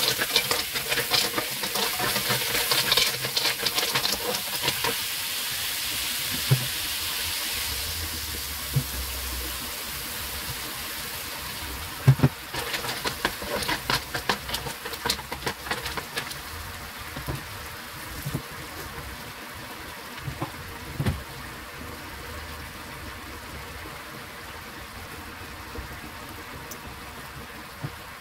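Clams sizzling in a hot wok while a spatula stirs them, with bursts of clattering from the spatula and shells against the wok. The sizzle is loudest at the start and dies down over the second half.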